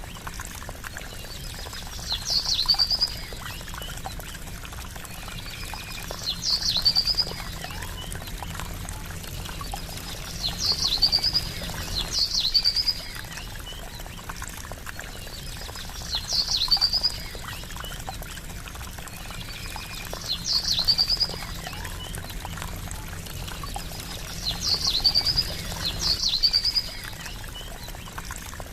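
Trickling water running steadily, with a songbird giving a short, high call about every four seconds.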